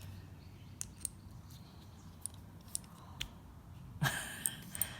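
Scattered light clicks and taps of small metal engine parts, the nitro engine's piston and cylinder sleeve, being handled, with a brief louder rustle and a cluster of clicks near the end.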